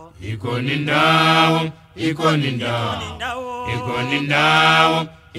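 Music: a choir of men's voices singing a cappella in harmony, in held phrases with short breaks between them.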